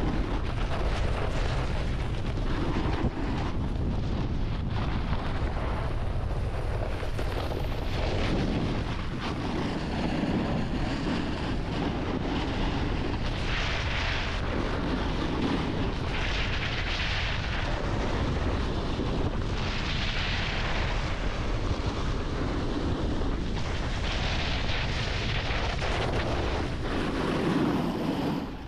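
Wind buffeting the microphone of a snowboarder riding downhill, with the hiss of the board's edges scraping over the snow swelling every few seconds as it turns.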